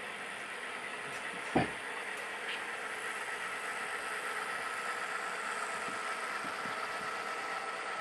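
Sound decoder of an HO-scale Santa Fe diesel locomotive playing a steady diesel engine sound through its small speaker as the model train runs. One sharp knock comes about a second and a half in.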